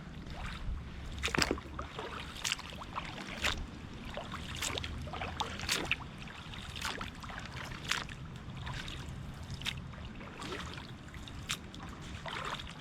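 Kayak paddle strokes: the blade dips and splashes in the water about once a second in an even rhythm, with water trickling off it, over a low rumble.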